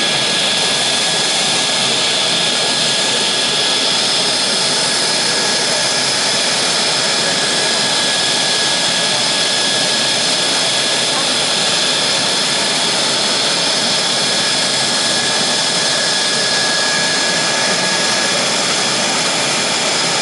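Mitsubishi F-2's General Electric F110 turbofan running steadily on the ground during an engine run-up. It makes a loud, even rush of jet noise with a steady high whine on top.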